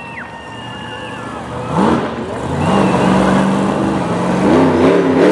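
Monster truck engine revving: the pitch rises sharply about two seconds in, holds at high revs, then wavers up and down near the end.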